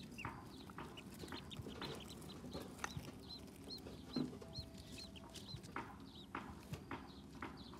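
Ducklings peeping: a run of short, high, arched chirps, several a second, with small clicks and taps as they peck at feed and water dishes.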